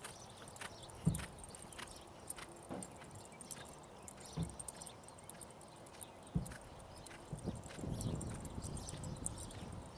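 Reining horse's hooves striking the ground in an uneven run of soft footfalls, with a few heavier thuds.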